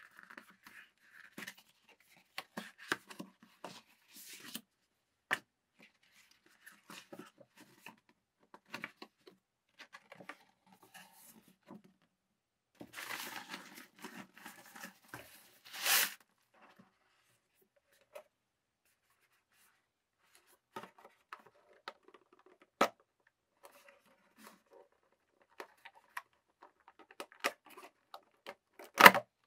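Unboxing handling noise: paper rustling and sharp clicks of cardboard and plastic. A longer burst of rustling comes about halfway as a thin wrapping sheet is lifted and shaken out. There is a louder knock and rustle near the end as a small FPV drone is pulled from its cardboard box.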